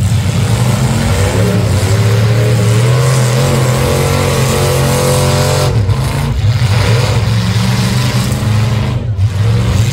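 Full-size demolition derby cars' engines running hard and revving, the pitch rising and falling, with several engines heard at once.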